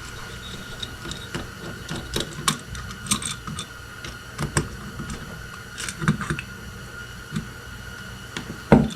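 Scattered light clicks and taps of a hand tool and small metal parts being handled while the float bowl is taken off an ATV carburetor.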